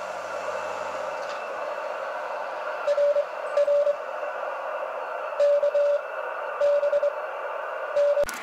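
A Morse code (CW) signal received on a YouKits HB-1B QRP transceiver: a single steady beep keyed in a few slow dash-length tones, heard over the receiver's steady band hiss. A sharp click comes near the end.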